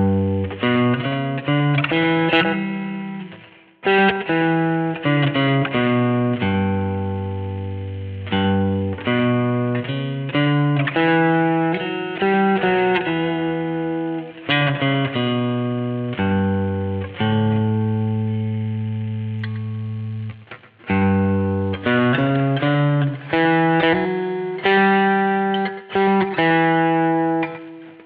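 1982 Vantage VE-550 electric guitar played direct through an amp modeller with effects: phrases of picked single notes and ringing chords, with short breaks about 4 seconds and 21 seconds in.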